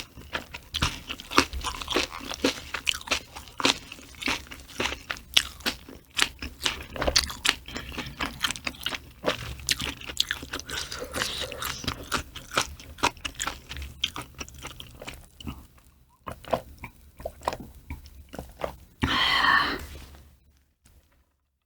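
Close-miked chewing of food, with a dense run of crunchy, crackling bites that thins out after about sixteen seconds. A louder sound lasting about a second comes near the end.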